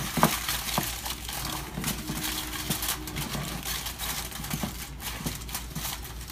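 Aluminium foil crinkling and crackling as it is folded and crimped down around the edge of a baking pan, in irregular crackles throughout.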